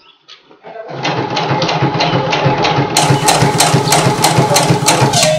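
Domestic sewing machine stitching a zip onto trousers: the motor runs with a regular clatter of needle strokes, about four a second, starting about a second in and stopping just after the end.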